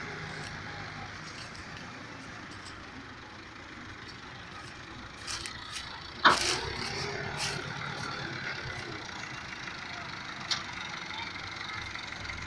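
Fiat tractors' diesel engines running steadily while hauling a heavily loaded sugarcane trolley, with a single sharp clank about six seconds in.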